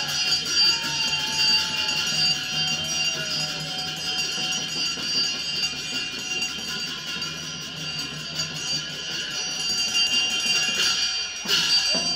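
Traditional Nepali folk dance music with jingling bells ringing over a steady beat, and a brief swell near the end.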